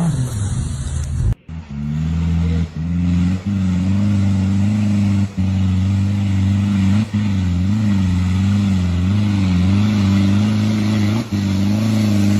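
Nissan Patrol's engine pulling steadily under load as the 4x4 climbs a steep dirt slope, its pitch wavering slightly and cutting out briefly several times. Before that, the engine sound of another off-road truck falls and stops abruptly about a second and a half in.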